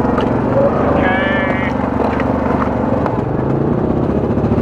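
Yamaha 700-class ATV single-cylinder engine running steadily at low revs while the quad creeps along a rough trail. A brief high wavering squeal sounds about a second in.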